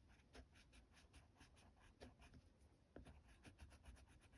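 Faint, fast scratching of a Neocolor II water-soluble wax pastel being worked in quick short strokes over rough cotton-rag paper.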